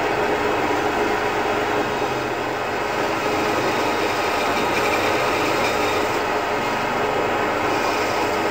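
Bench scroll saw running, its fine reciprocating blade cutting steadily through a blockboard guitar body.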